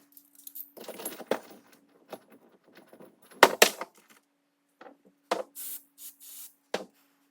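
Hand tools and small metal parts clinking, scraping and knocking while a chainsaw's decompression valve and spark plug are being fitted, with a sharp double clink about three and a half seconds in as the loudest sound. A faint steady hum runs underneath.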